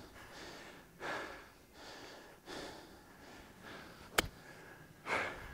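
A man panting, out of breath from running: several hard breaths, about one a second. One sharp click about four seconds in.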